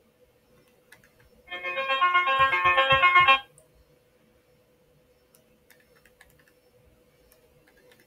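A short piano-like musical phrase of several notes, lasting about two seconds and starting about a second and a half in. Around it there is only a faint steady hum and a few faint clicks.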